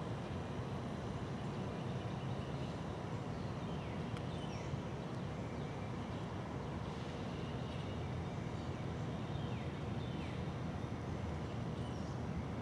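Outdoor ambience: a steady low rumble, with a few faint falling bird chirps twice along the way.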